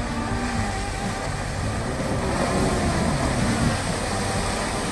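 Chevrolet Colorado ZR2 pickup driving slowly along a muddy trail, its engine running steadily and rising and falling in pitch.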